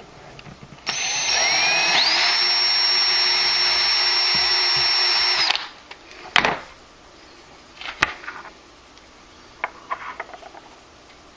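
Electric drill spinning up with a rising whine, then running steadily for about four and a half seconds as a twist bit bores into a buckeye nut, and stopping. A sharp click follows, then a few light clicks and taps of handling.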